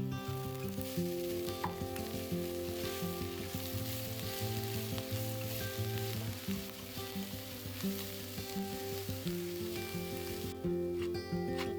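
Food sizzling as it fries in a pan, a steady hiss that cuts off about ten and a half seconds in, over background music.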